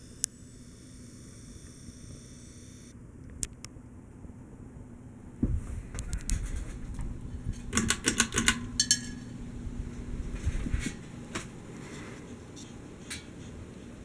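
Seagull Lighting Main Street ceiling fan running with a steady motor hum. About eight seconds in, its pull chain is pulled, giving a quick run of rattling clicks from the chain and switch amid some knocks and rumble.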